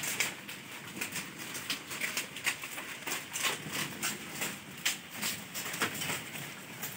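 Goats moving about a bamboo-slatted shed among leafy fodder: irregular rustling, light clicks and knocks, with no bleating.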